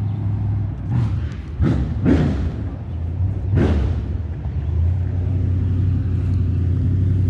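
Dirt late model race car's V8 engine running as the car drives up toward the listener, with a few louder surges in the first four seconds. A steady low running note then grows louder as the car nears.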